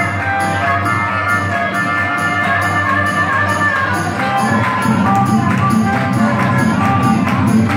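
Blues harmonica playing held and bending notes over an acoustic guitar strummed in a steady rhythm. The guitar gets fuller and louder about halfway through.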